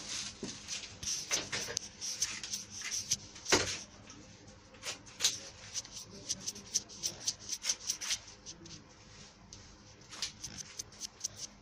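Rustling and quick runs of sharp clicks and scrapes from rose stems being stripped of their leaves and thorns.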